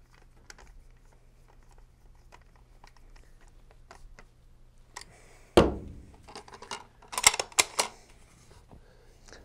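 Faint ticking of a hand torque driver turning a rifle's rear action screw down to its set torque. About halfway through comes a heavy knock, then a quick run of sharp clicks and rattles as the tool is put down and the rifle is handled.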